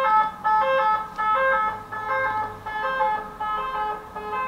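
Ambulance siren passing, sounding a repeating pattern of alternating tones.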